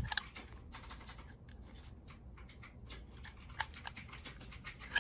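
Small irregular clicks and light scraping as a metal drive bracket is fitted onto a 2.5-inch SSD and worked with a precision screwdriver, with one sharper click a little past the middle and another near the end.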